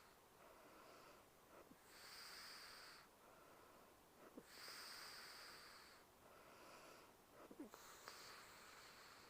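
A sleeping girl breathing softly and slowly, a hissy breath about every three seconds, with a couple of faint small clicks between breaths.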